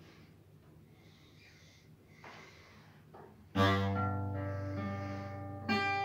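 Acoustic guitar: a chord strummed about three and a half seconds in and left ringing, then a second chord strummed near the end.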